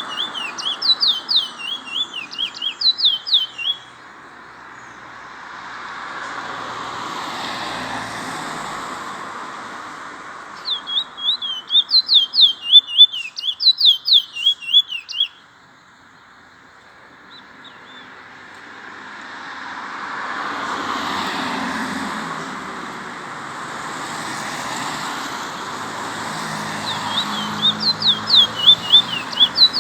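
Trinidad bullfinch singing three bursts of rapid, high chirping notes, near the start, about halfway through and again near the end. Between the songs a broad rushing noise swells and fades.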